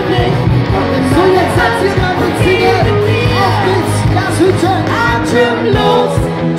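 Loud live band music with a singer, heavy steady bass under the vocal line.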